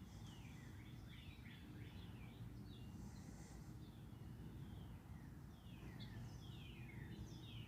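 Songbirds chirping faintly, a scattered string of short falling notes, over a low steady hum.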